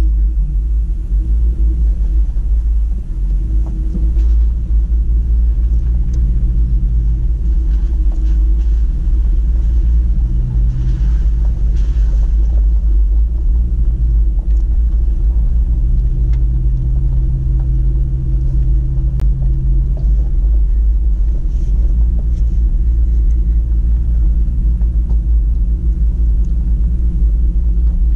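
Toyota Tacoma pickup driving up a dirt mountain trail, heard from inside the cab: a steady, loud low rumble of the engine and tyres on the gravel. The engine drone swells twice in the middle, near the halfway point and again a few seconds later.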